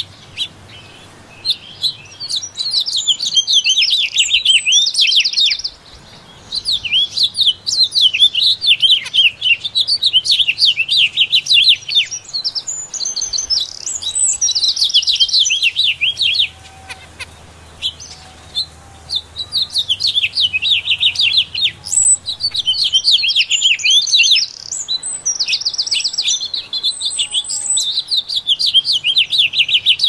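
Small songbirds chirping and trilling in fast, high runs of notes, coming in bursts with two short lulls.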